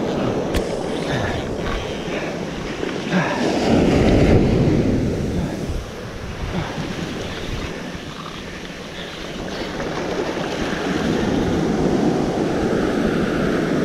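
Surf washing up the sand with wind buffeting the microphone; the wash swells about three to four seconds in, eases off, and builds again near the end.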